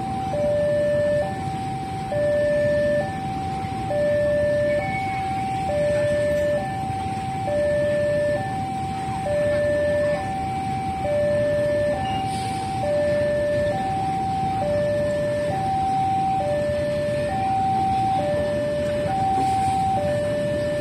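Railway level-crossing alarm sounding a steady two-tone hi-lo signal, a higher and a lower tone alternating about once a second, the warning that the crossing is closed for a train. A steady low rumble runs underneath.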